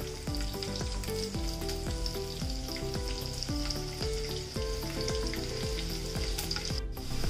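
Tempering frying in a kadai: garlic cloves and broken dried red chillies with mustard and cumin seeds sizzling steadily in hot oil. A soft instrumental tune of short notes runs underneath.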